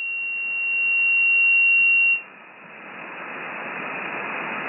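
Shortwave transceiver audio: a steady high-pitched whistle, the tone of an unmodulated carrier beating in the single-sideband passband, holds for about two seconds and cuts off. Then the receiver's band noise, a hiss of static, rises slowly while the operator waits for a reply.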